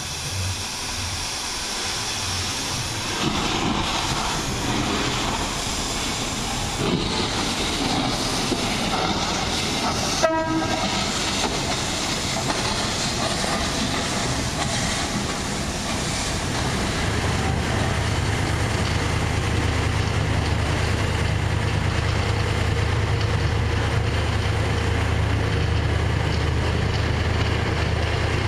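Beyer Peacock 2-4-0T steam locomotive pulling away, with steam hissing from around its cylinders. A short whistle toot comes about ten seconds in. From about halfway on, a steady low hum sits under the sound.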